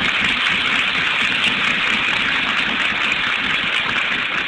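Audience applauding steadily on an old, thin-sounding 1960 recording.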